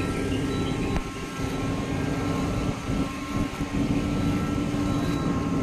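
Engine running steadily, a constant drone with a few thin whining tones over a rushing noise, dipping briefly twice.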